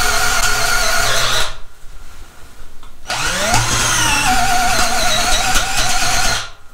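SnapFresh 20V cordless drill in low gear (speed 1), boring into a wooden beam with a 1-inch spade bit. The motor whines steadily, stops about a second and a half in, then starts again with a rising whine as it spins up. It runs under load until just before the end.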